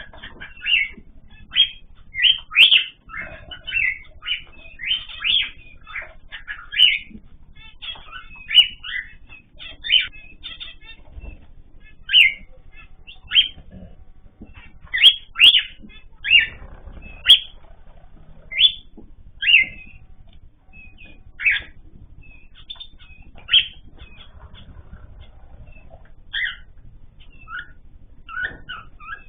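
Small cage birds in a mixed aviary chirping: a stream of short, bright calls, several a second in the first half, thinning to scattered single calls later.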